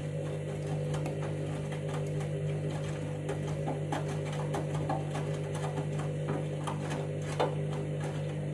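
Candy washing machine running mid-cycle: a steady motor hum with light clicks and rattles throughout.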